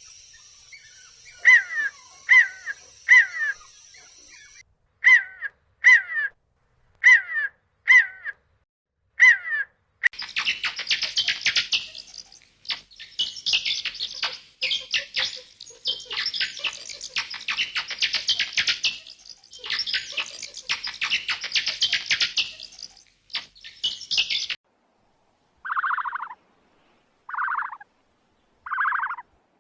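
Animal and bird calls in three stretches. First comes a call repeated about once a second, then a long stretch of dense bird chirping. After a short gap near the end, short calls follow about every second and a half.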